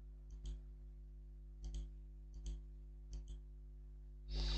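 Computer mouse clicking: four quick double clicks spread over a few seconds while the page is scrolled, over a faint steady hum. A louder short hiss comes near the end.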